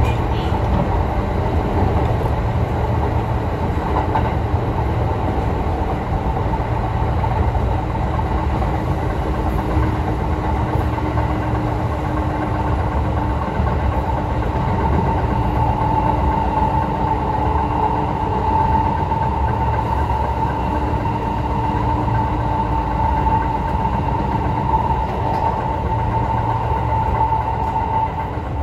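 Running noise of a Kintetsu express train heard from inside the passenger car at speed: a steady rumble of wheels on track. A steady mid-pitched hum grows stronger about halfway through and fades near the end.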